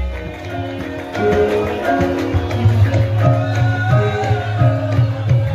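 Javanese gamelan accompaniment for a lengger dance: held pitched tones from struck instruments over steady kendang hand-drum beats.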